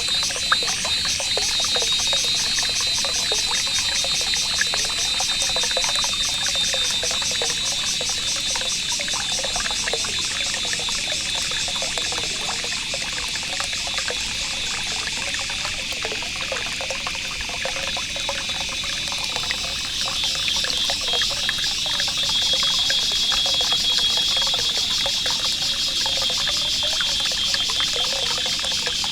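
Nature ambience of steady trickling water, with a continuous high buzz that pulses very fast above it.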